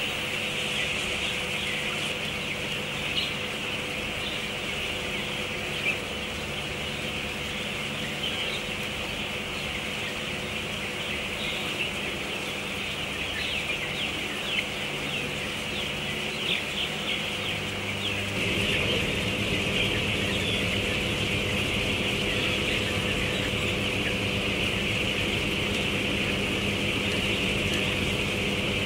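A large flock of four-week-old broiler chickens peeping and cheeping continuously, many birds at once, over the steady hum of the poultry house's ventilation fans. The hum gets louder partway through.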